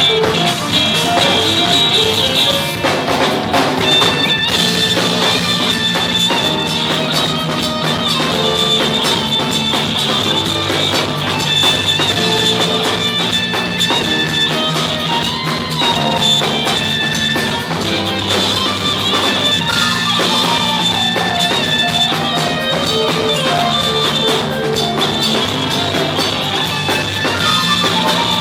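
Live rock band playing: held electric guitar tones over a drum kit, loud and steady throughout.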